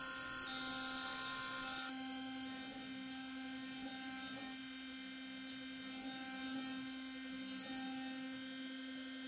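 Spindle of a homemade CNC milling machine running steadily as a small end mill cuts a brass workpiece: a steady tone with a faint hiss above it, the hiss dropping away about two seconds in.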